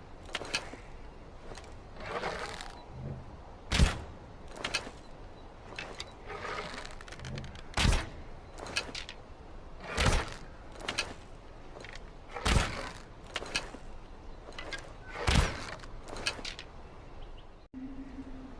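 Longbow being shot repeatedly: sharp thwacks of the released string come every two to three seconds, with softer scraping and rustling between shots. A low steady hum starts suddenly near the end.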